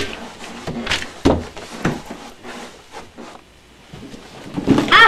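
Irregular knocks, thumps and scuffs of a person groping their way down stairs in the dark. They go quiet for a moment past the middle, then come back louder and busier near the end.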